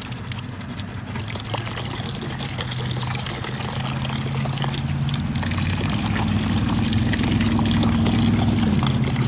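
Water pouring into a plastic bowl, a steady splash that grows slowly louder. A low tone rises in the second half and cuts off shortly before the end.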